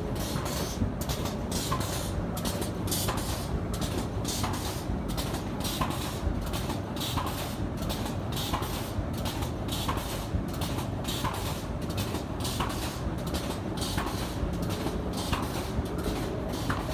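Automatic paper cone machine running: a steady mechanical clatter of rapid clicks with a regular sharper tick about every second and a half.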